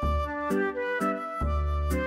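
Waltz played on a Roland FR-4x digital V-Accordion: a low bass note on each downbeat followed by two short chord beats (oom-pah-pah, about one bar every 1.4 s) under a held, reedy melody line.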